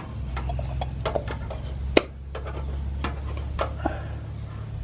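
Small clicks and taps of a plastic turn signal lamp housing and its screws being handled and fitted, with one sharp click about two seconds in. A steady low hum runs underneath.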